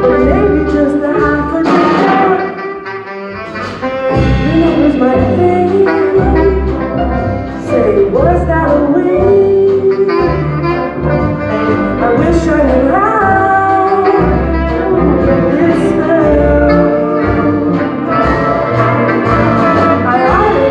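Music with brass and saxophone in a jazz style, playing continuously, with a brief quieter passage about two seconds in.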